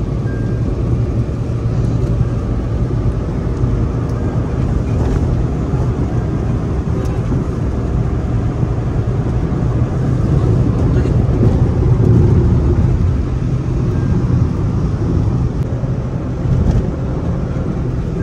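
Tata Altroz hatchback driving fast, heard from inside the cabin: a steady low engine drone with road and wind noise, swelling a little about two-thirds of the way through.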